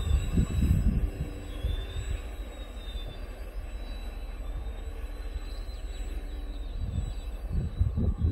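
Coal hopper wagons at the tail of a freight train rolling away along the track: a low steady rumble, louder for the first second or so, then quieter. Rough low buffeting comes back near the end.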